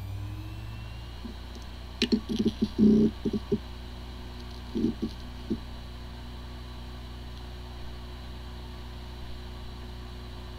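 Hard disk drive running: a whine rising slightly in pitch over the first second, bursts of short ticks and knocks about two seconds in and again about five seconds in, then a steady spinning hum. It sounds like a healthy drive, although its firmware is corrupted and the computer cannot detect it.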